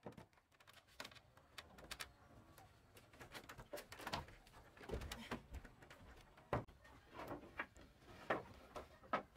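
Scattered, irregular wooden knocks and clatter from timber boards and beams being handled and set down on a plank deck during cabin construction, with a few sharper knocks standing out.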